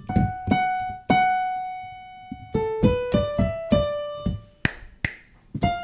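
Yamaha digital keyboard in a piano voice, played one note at a time to pick out a simple blues melody, with one note held longer about a second in. Near the end come two sharp claps, then one more note.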